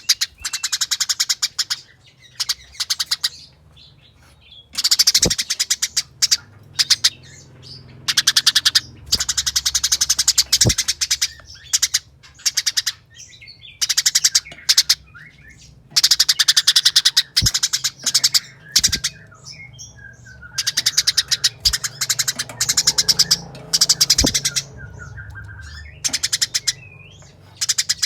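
Eurasian tree sparrows chattering in dense bursts of very rapid, high notes, each burst a second or two long with short gaps between. These are the agitated calls of fighting sparrows.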